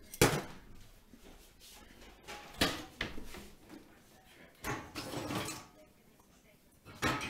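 Clunks and clatter of dishes and a dishwasher's racks being handled as the dishwasher is loaded: four sharp knocks about two seconds apart.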